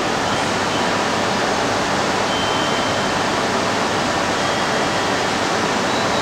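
Steady rushing noise on a Shinkansen station platform, even and unchanging, with no distinct event standing out.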